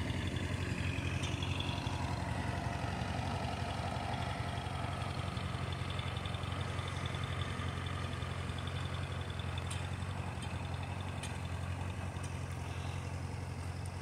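Old tractor engine running steadily, a low even hum.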